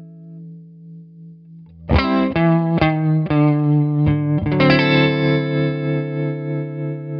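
Electric guitar played through a Behringer UV300 Ultra Vibrato paired with a Dunlop Tremolo Volume Plus, set to imitate a Leslie rotary speaker. A fading chord has a wobbling pitch, then a run of picked chords starts about two seconds in, and the last is left ringing with the same wobble.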